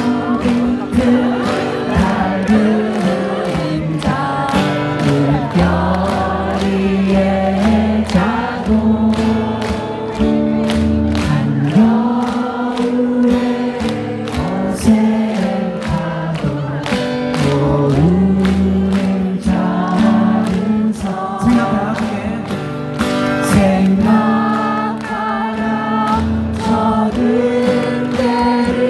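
Live band music with a crowd of many voices singing along to a steady beat.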